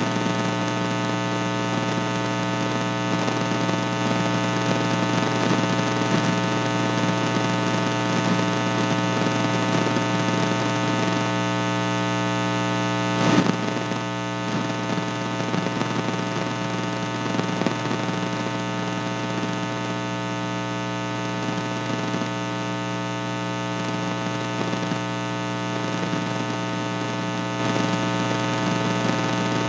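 Steady electrical mains hum and buzz on the audio line, with one short click about halfway through.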